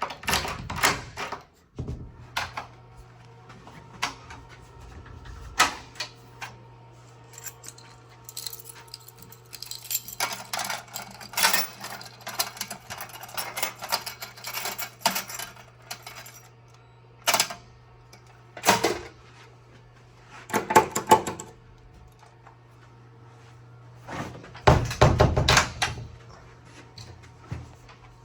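Keys jangling and clinking, with scattered clicks and knocks, over a steady low hum that starts about two seconds in.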